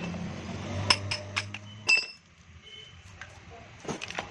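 Sharp metallic clinks and taps from the steel stator and copper windings of an A/C compressor motor being stripped for copper: three clinks about a second in, then a few more near the end.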